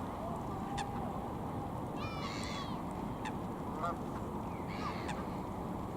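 Geese honking: a short burst of calls about two seconds in and another near the five-second mark, over a steady low rumble.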